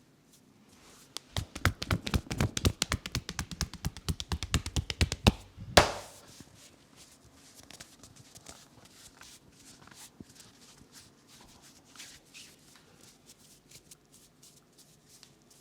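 Massage hands striking rapidly in a head massage, a fast run of percussive taps lasting about four and a half seconds and ending in one louder slap, followed by quieter rubbing and light taps.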